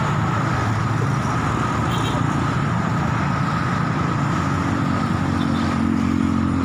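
Steady road traffic noise from cars and motorcycles passing on a busy road, with a nearby engine's hum coming in about four and a half seconds in.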